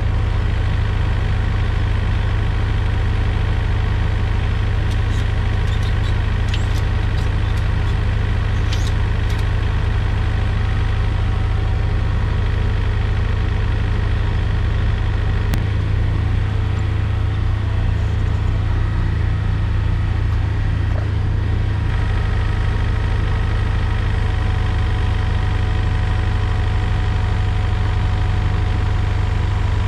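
Takeuchi TB145 compact excavator's diesel engine running steadily, with a few light clicks around five to nine seconds in.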